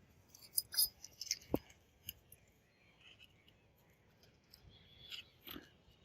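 A few light clicks and taps from small objects being handled, with a quiet stretch in the middle.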